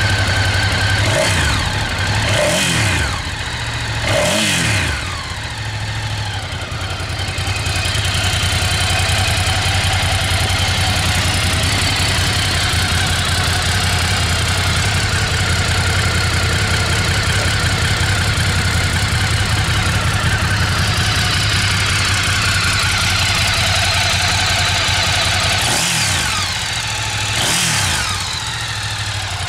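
Ducati GT1000's air-cooled L-twin running on its stock exhaust, idling steadily. The throttle is blipped three times in the first few seconds and three more times near the end, each rev rising and falling back to idle.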